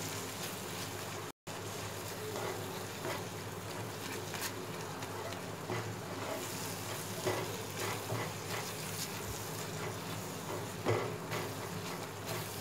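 Scrambled eggs frying in oil in a pan, with a metal slotted spatula stirring and scraping nonstop, making scattered light clicks over a steady low hum. The sound cuts out for a moment just over a second in.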